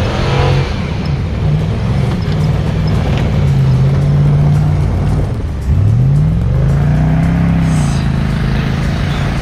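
A 4x4 truck's engine revving up and down repeatedly. About halfway through it drops off, then revs sharply back up and holds high.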